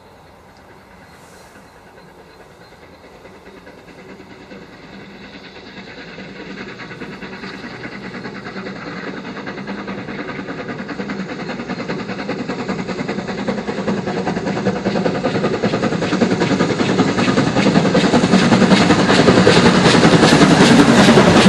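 BR Britannia Class 7MT 4-6-2 steam locomotive 70013 Oliver Cromwell approaching under steam with its support coach. Its sound grows steadily from faint to loud as it draws close.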